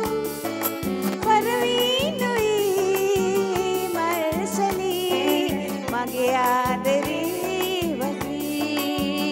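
A woman singing into a microphone over backing music with a steady beat.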